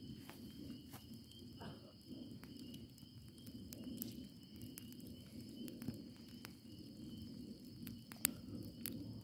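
Cardboard bonfire crackling with scattered sharp pops, one louder pop near the end, over a low steady rush. Crickets trill steadily in the background.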